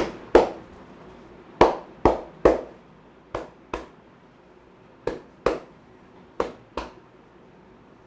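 A barber's hands slapping in the percussive strokes of an Indian head massage: about eleven sharp slaps in quick groups of two or three, the first few loudest.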